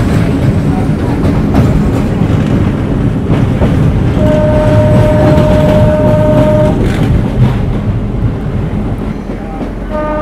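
Meter-gauge train running along the track with a steady rumble and wheel clatter. The locomotive's horn sounds one long blast of about two and a half seconds about four seconds in, and starts again just before the end.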